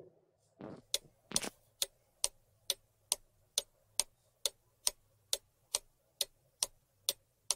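Clock ticking sound effect, a sharp tick a little more than twice a second, starting about a second in: the countdown timer for answering the riddle.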